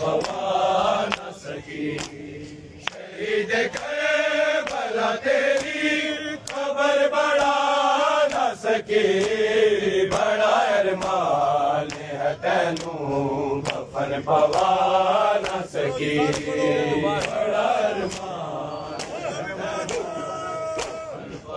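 A crowd of men chanting a noha together, over a steady beat of sharp slaps from hands striking bare chests in matam, roughly one to two a second.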